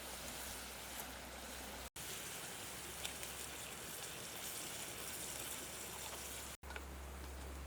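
Steady outdoor water noise, an even hiss with a few faint drip-like ticks, broken by two abrupt momentary dropouts.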